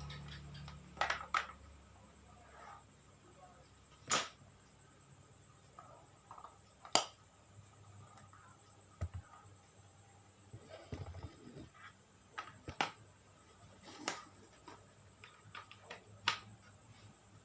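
Scattered sharp clicks and taps, about a dozen at irregular intervals, like small hard objects being handled.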